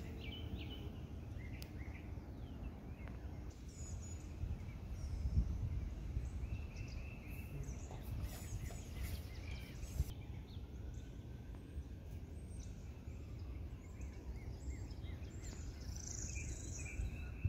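Outdoor ambience: scattered short bird chirps and calls over a steady low rumble on the microphone.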